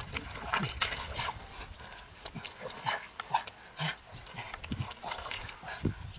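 Hands digging and squelching through wet mud and shallow muddy water: a run of short, irregular wet slaps and sucking sounds.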